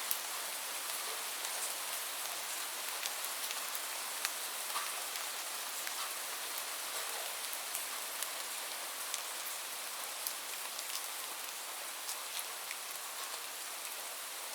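Light rain falling steadily, an even hiss with many separate drops ticking on a surface.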